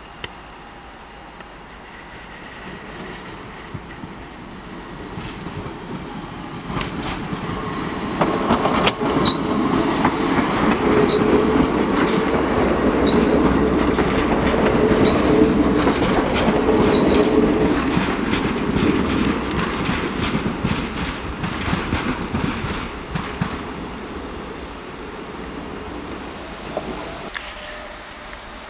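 Skånetrafiken X61 electric multiple unit rolling past, building up as it approaches and fading as it goes. Its wheels click rapidly over rail joints and points, with a steady low hum and a few brief high-pitched wheel squeaks while it is closest.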